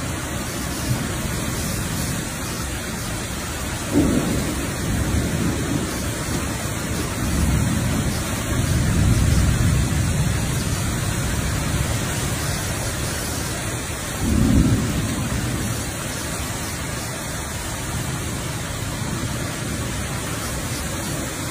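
Strong storm wind and heavy rain heard from indoors through a window glass: a steady rush of noise with deep gusts that swell and fade several times.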